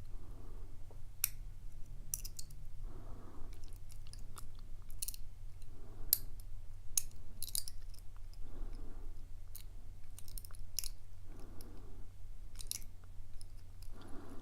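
Lock pick and tension wrench clicking and scraping inside a steel pin-tumbler padlock as it is picked: scattered sharp little ticks at an irregular pace.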